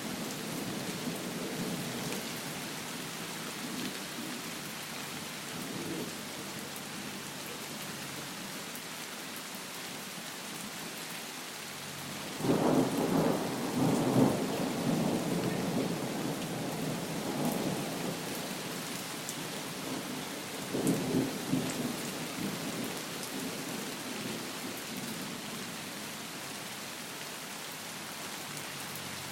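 Steady heavy rain with thunder rumbling: a loud roll starts about twelve seconds in and lasts a few seconds, and a shorter rumble comes near twenty-one seconds.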